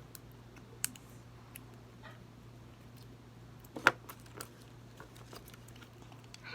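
Small plastic toy packaging being handled and pried at: scattered faint clicks and taps, with two sharper clicks about a second in and near four seconds in, over a steady low hum.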